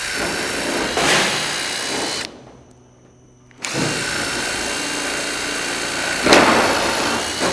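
Cordless drill boring rivet holes through the overlapping steel barge capping flashings: two steady runs of the drill, with a break of about a second between them.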